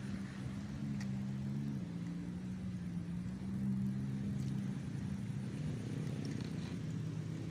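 A motor engine running with a steady low hum, its pitch shifting slightly a couple of times.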